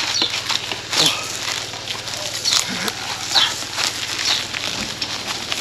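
A dog making several short, high whines among light scrapes and clicks.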